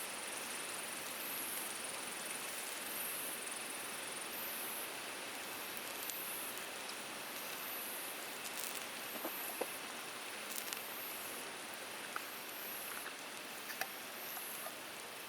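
Steady rush of a mountain stream, with insects chirping in a regular repeating pattern high above it and a few small clicks in the second half.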